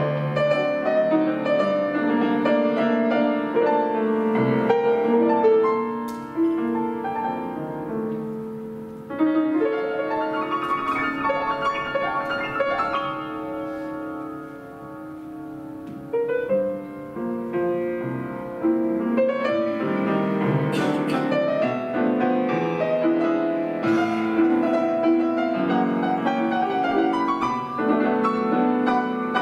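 Solo grand piano playing a flowing chordal passage, easing into a softer stretch about halfway through and then building back up.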